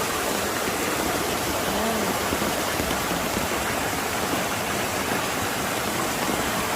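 Steady rush of water from a rain-swollen mountain valley stream, with rain falling.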